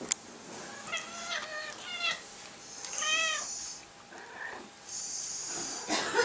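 Cat meowing three short times, about a second apart, with the dog's breathy snuffling in between.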